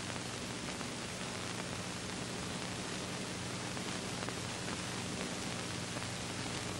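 Steady hiss with a low electrical hum, with no distinct sound from the work being shown.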